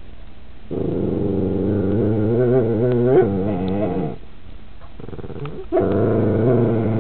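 Puppies growling in long, wavering grumbles in a squabble over food: a first grumble of about three seconds that breaks upward into a whiny yelp near its end, then a second one starting near the end.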